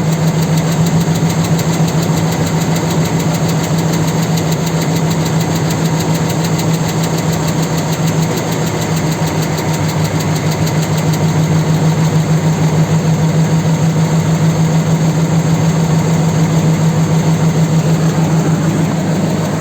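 4.7-litre V8 engine running steadily at idle with a rhythmic knock from inside the engine.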